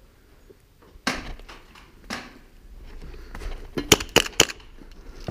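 Airsoft replicas firing single shots: two sharp cracks about a second apart, then three in quick succession about four seconds in.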